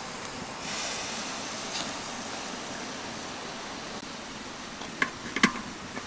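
Steady hiss of prawns and chili peppers steaming and smoking in a pan over a fire. About five seconds in come a few sharp knocks as a woven wicker basket lid is set over the pan.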